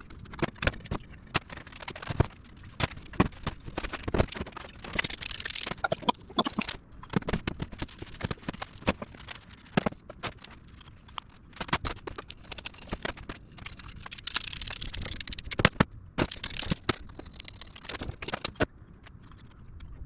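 Hand work on a diesel turbocharger's metal housing to clean off green corrosion: irregular clicks, knocks and scrapes, with two spells of scrubbing noise, one about five seconds in and one near fifteen seconds.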